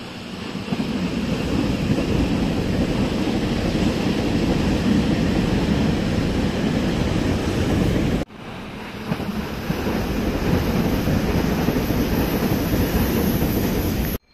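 Loud rushing of wind buffeting the microphone, heaviest in the low range, broken by a sudden cut about eight seconds in and building again afterwards.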